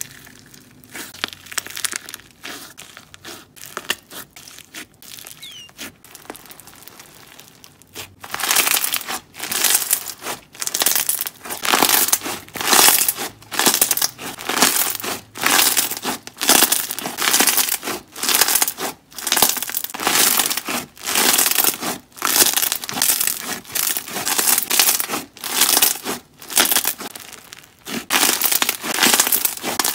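Hands pressing and squeezing crunchy slime with foam balls and beads, giving crackling pops. For the first several seconds the crackles are soft and scattered. Then loud crunches come in repeated presses, about one a second.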